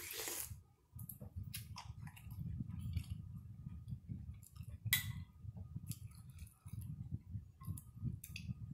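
A sip of soup slurped from a spoon at the start, then chewing with wet mouth sounds and a few sharp clinks of a ceramic soup spoon against the bowl, the loudest about five seconds in.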